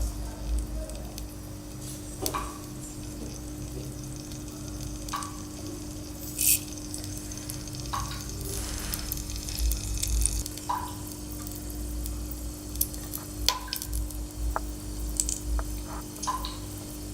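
Mustard seeds popping in hot oil in an earthen pot: scattered sharp pops every second or two, over a faint steady hum.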